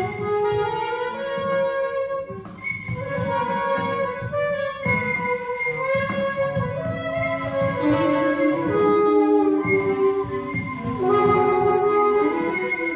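Free-improvised ensemble music: saxophones and clarinet holding overlapping notes that shift every second or so, over fast continuous hand drumming on batá drums.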